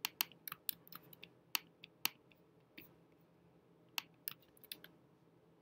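Computer keyboard keys being tapped: scattered single keystrokes, then a quick run of them about four seconds in, as a number is typed into a search box.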